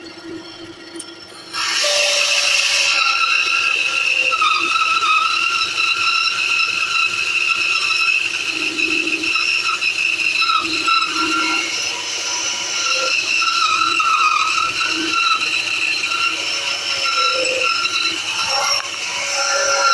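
Titan bandsaw running, then its blade biting into a wooden board about a second and a half in, with a sudden jump in loudness. From there it cuts steadily with a high-pitched whine over the motor.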